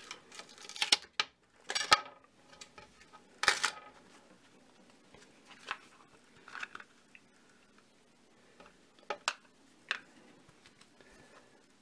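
Metal spatula scraping under a flexible TPU 3D print and prying it off a printer bed covered in packing tape: a few sharp scrapes and peels in the first four seconds, then scattered lighter clicks and rustles as the freed print is handled.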